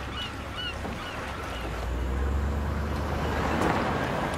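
Waterfront ambience with a few short high cries, giving way to a car's low engine rumble that swells about two seconds in as the car drives up.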